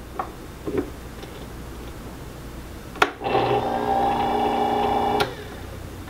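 A small motor hums steadily for about two seconds, switched on and off with a click at each end. A few light knocks come before it.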